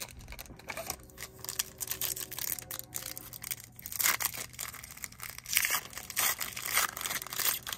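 Trading-card pack wrapper being torn open and crinkled, a fast run of crackles with louder bursts about four seconds in and again near the end.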